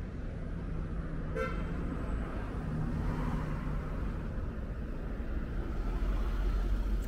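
Street traffic rumbling steadily, with one short vehicle horn toot about a second in.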